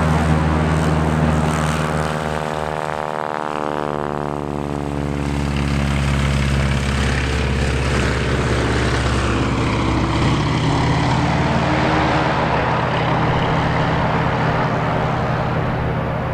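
Stinson L-1's nine-cylinder Lycoming R-680 radial engine and propeller running steadily at full power as the aircraft takes off and flies past, with a falling sweep in the tone about two to five seconds in.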